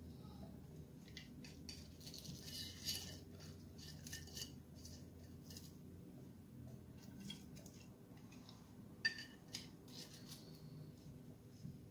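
Faint clicks and crisp scrapes of chopsticks picking up crunchy twice-fried karaage and setting the pieces down on a metal wire rack, with one sharper click about nine seconds in.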